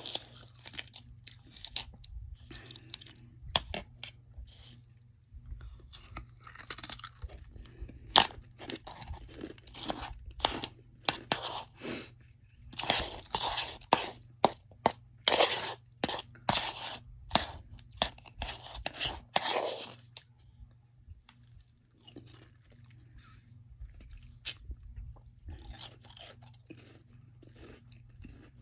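Mouthfuls of soft freezer frost being bitten and chewed, in irregular wet crunches; the crunching is busiest in the middle and thins out for a few seconds before picking up again near the end.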